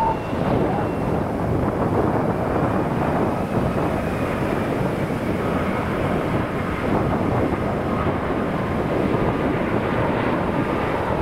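Airbus A330-300 on final approach: steady jet engine rumble with a faint high whine from its turbofans, and wind buffeting the microphone.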